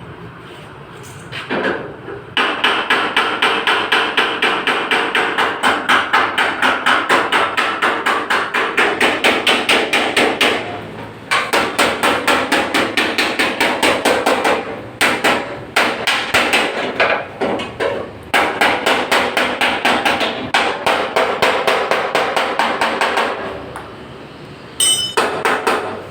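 Hammer beating a dented car body panel, panel-beating during crash-damage denting work: long runs of rapid blows, several a second, with brief pauses between runs.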